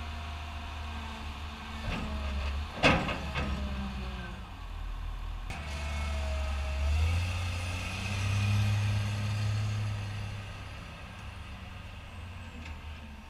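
Caterpillar 950H wheel loader's six-cylinder diesel running as the machine drives off, with a short sharp clatter about three seconds in. The revs rise about seven seconds in, then the engine fades as the loader pulls away.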